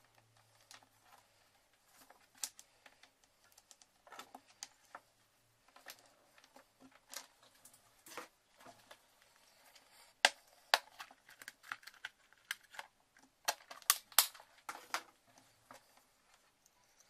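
Irregular light clicks and taps of a charger cable and small tools being handled on a cutting mat, sharper and louder about ten to fifteen seconds in.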